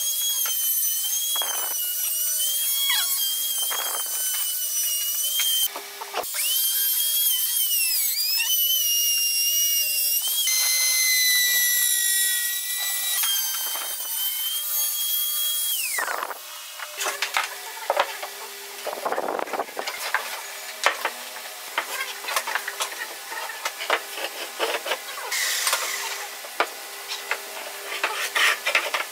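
Handheld trim router cutting slots in a wooden board, a high whine that wavers as the bit bites and briefly cuts out about six seconds in. It stops a little past halfway, and a run of light wooden knocks and clatter follows as the cut pieces are handled.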